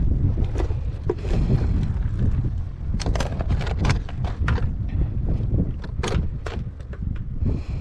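Hard plastic carrying case of a portable gas camping stove being opened and set up, giving a run of sharp plastic clacks and knocks in the middle, over a steady low rumble of wind on the microphone.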